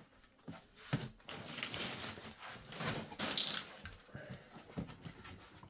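Cardboard Lego box being slit open and handled: a utility knife scraping through the seal, knocks and rustles of the box, and a short rip about three and a half seconds in as the seal gives.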